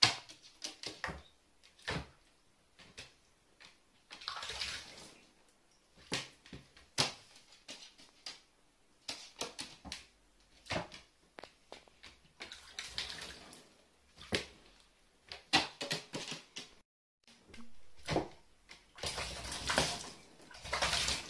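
A carrion crow bathing in a plastic basin of water, dipping in and shaking itself, in several bouts of vigorous splashing and wing-flapping. Between the bouts come sharp taps and small splashes. The longest and loudest splashing comes near the end.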